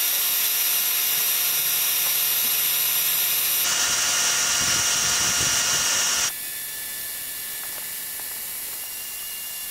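Electric drill spinning a Josco drill-powered inline pump as it pumps thick differential oil, working a little harder on the heavier oil. It runs steadily, its pitch shifts a few seconds in, and it becomes noticeably quieter a little past halfway.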